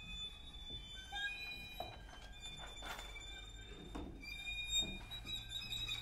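String quartet playing a sparse, quiet contemporary passage: thin, high held tones, a few short clicks or taps scattered through it, and a low drone that comes in about four seconds in.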